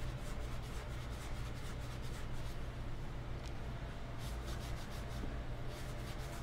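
Damp paper towel rubbed under the fingertips over a painted chair seat in short repeated strokes, wiping off paint to distress the stenciled finish. A steady low hum runs underneath.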